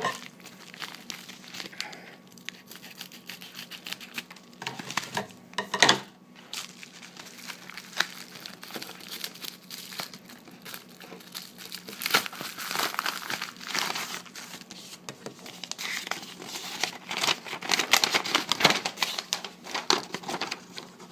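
Trading-card packaging being handled and unwrapped by hand: irregular crinkling with some tearing, busier in the second half, with one sharp crack about six seconds in.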